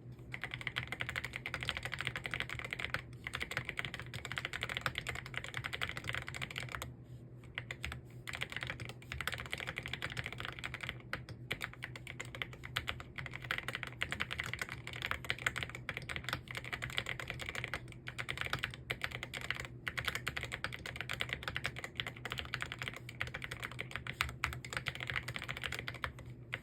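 Fast, continuous typing on a computer keyboard: a dense run of key clicks, with a short, quieter lull about seven seconds in.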